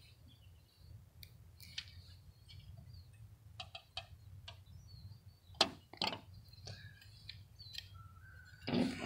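Scattered light clicks and taps of the small metal tensegrity table being handled while foot pads are fitted into its plate. A couple of sharper clicks come about six seconds in, and a louder knock near the end.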